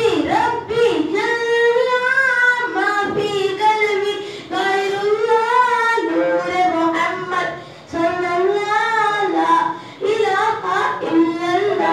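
A boy singing a naat unaccompanied, a devotional Urdu song in praise of the Prophet, in long held notes with a wavering pitch, phrase after phrase with short breaths between.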